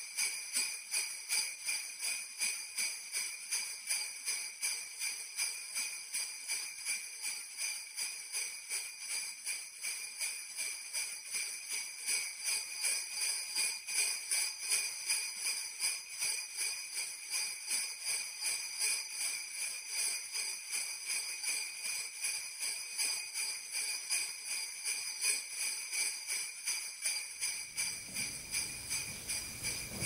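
Sleigh bells shaken in a steady rhythm, about two shakes a second, ringing on throughout. A low hall ambience comes in under them near the end.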